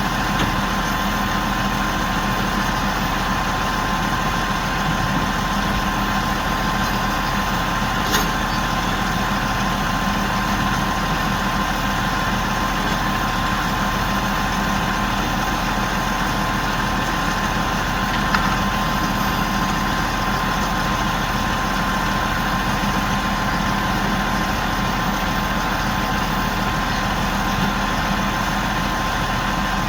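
Big mobile crane's engine running steadily at idle, an even unbroken drone. Two brief sharp ticks stand out, one about a quarter of the way in and one a little past halfway.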